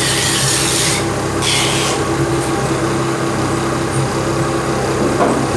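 An engine running steadily, with two short hisses in the first two seconds.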